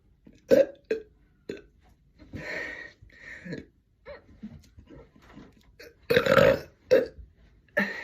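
A woman's deliberate air-swallowed belches in a rapid string, some short and some drawn out, during a bid to belch continuously for a minute. The longest and loudest comes about six seconds in.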